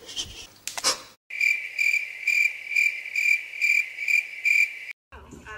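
Steady cricket-like chirping, about two pulses a second, which starts just over a second in and cuts off abruptly near the end. It is preceded by brief rustling and a sharp click.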